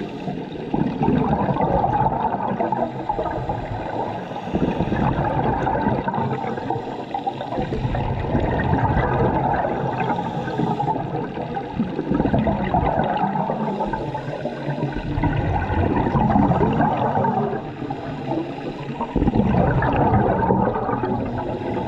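Underwater gurgling and rushing of a scuba diver's exhaled bubbles, low and muffled, coming in surges a few seconds long.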